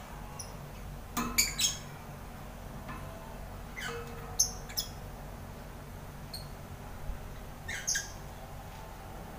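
Lovebirds calling: a handful of short, high-pitched squawks in three small clusters a few seconds apart, over a steady low hum.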